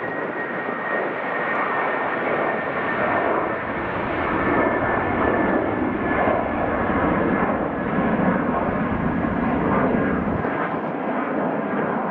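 Boeing 737-800's CFM56-7B turbofan engines running loud as the airliner rolls along the runway. It is a dense, steady jet rush with a thin high whine over the first few seconds.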